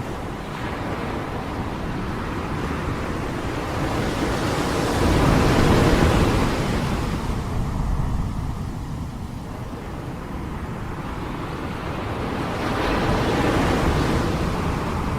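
Sea waves washing in, swelling to a peak about six seconds in and again near the end, with wind rumbling on the microphone.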